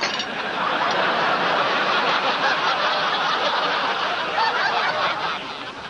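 Studio audience laughing loudly, dying away near the end.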